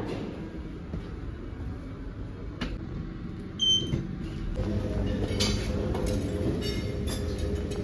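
Hotel lift running, with a click and then a short high electronic chime about three and a half seconds in. After that comes a steadier room hum with a few light clinks.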